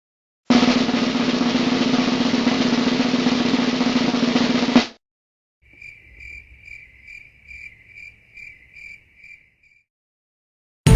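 A snare drum roll lasting about four seconds that ends on a final hit and cuts off. After a short pause come fainter cricket chirps, evenly spaced at about two and a half a second.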